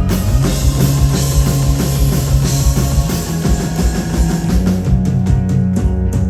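Live rock band playing loudly, with electric guitar, bass and drums and frequent cymbal crashes; a quick run of drum hits comes about five seconds in.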